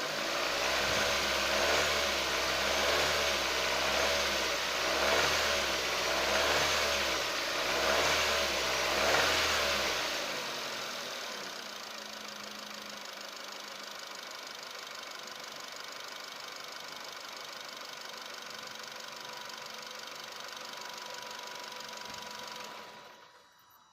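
Nissan Qashqai engine revved in about seven quick blips of the throttle, then settling to a steady idle, cutting off near the end. The owner is chasing a knocking noise from the engine area that shows at idle and under load when accelerating.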